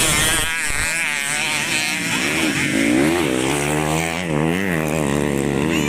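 Modified underbone (bebek) race motorcycles revving, their engine pitch rising and falling quickly with the throttle, more than one engine at once.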